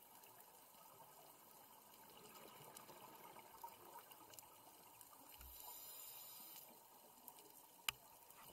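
Faint underwater ambience picked up through a camera's waterproof housing: scattered small clicks and a steady low hiss. A diver's exhaled bubbles hiss a little past halfway, and there is one sharp knock near the end as a diver handles the housing.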